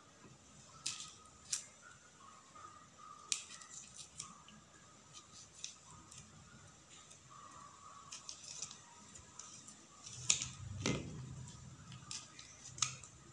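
Knife tip picking and scraping at the eye of a husked coconut to bore a hole through it: faint, irregular clicks and scratches, with a louder knock about ten seconds in.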